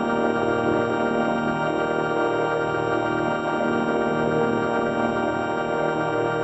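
A steady, organ-like electronic drone: many tones held at once without change, like a sustained chord.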